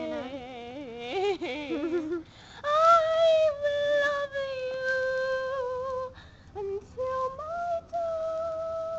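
A young woman singing solo with no accompaniment: a wavering, wobbling run of notes in the first two seconds, then long held notes, broken by a short pause about six seconds in.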